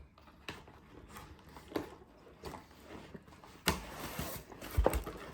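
Toy packaging and plastic toys being handled: scattered small clicks, a longer crinkling rustle about three and a half seconds in, then two low thumps.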